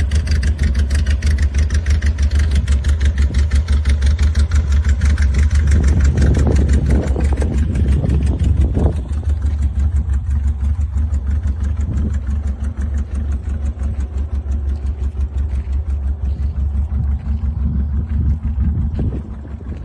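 Porsche 356's air-cooled flat-four engine idling with a steady, even low pulse, slightly louder in the first half.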